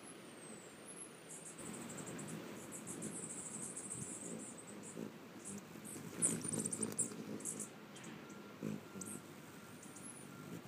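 Hummingbirds, a male Costa's among them, hovering close with a low whirring hum of their wings and high thin chips and twitters. The sound is loudest about six seconds in, as the birds come in to the feeder.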